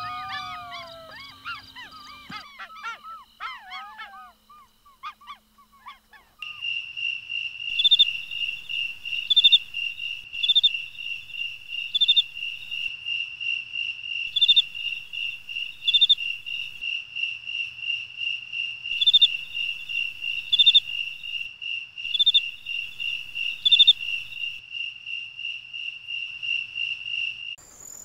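Golden jackals howling in a chorus of overlapping wavering wails that fade out over the first few seconds. From about six seconds in, a cricket's steady high pulsing trill follows, with louder chirps every second or so.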